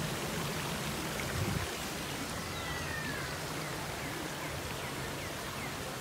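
Water running over the rocks of a shallow rock-lined pool stream, a steady rushing hiss. A low hum stops about a second and a half in, and a few short, faint, high chirps come in the second half.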